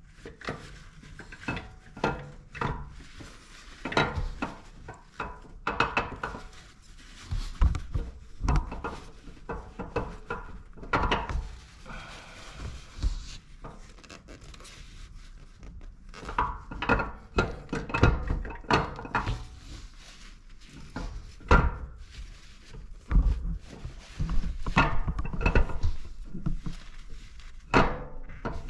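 Irregular clinks and knocks of hand tools and metal engine parts being handled while an engine is taken apart, some louder thuds among lighter metallic taps.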